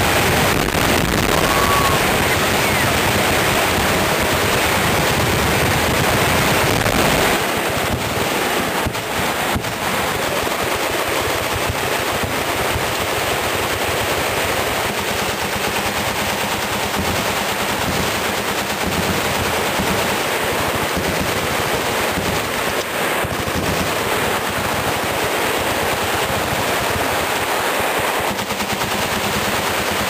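Many machine guns firing full-auto at once, their bursts overlapping into a continuous roll of gunfire. The firing is heaviest for the first seven seconds or so, then eases slightly but keeps going.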